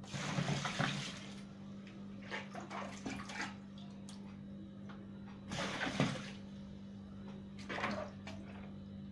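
Clean water being poured into the wash tub of a mini twin-tub washing machine, in several separate splashes, to rinse soap out of the clothes.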